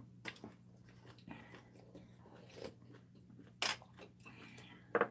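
Close-miked eating of spicy steamed seafood: quiet chewing and biting, with scattered short clicks and smacks, two louder ones about three and a half seconds in and near the end.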